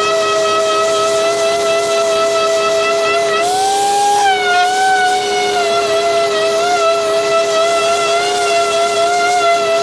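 Random orbital sander running on wood with a steady whine over a constant lower hum. Its pitch wavers slightly, rises briefly about three and a half seconds in, then settles back.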